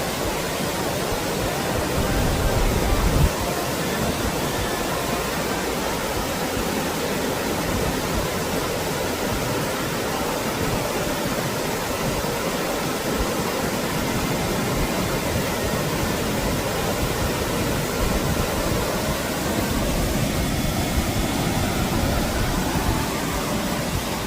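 Waterfall rushing with a steady, even roar of falling water, with a brief louder low rumble about three seconds in.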